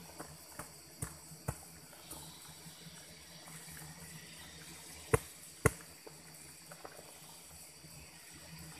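A small digging blade knocking and scraping in earth while a ground-wasp nest is dug out: a few sharp knocks in the first second and a half, then two much louder ones half a second apart about five seconds in. Under it, a steady low hum from the wasps swarming around the digger.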